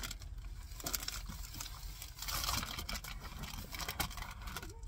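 A window cover being fitted inside a minivan: rustling and crinkling of the cover material, with scattered light clicks and knocks as it is pressed into place.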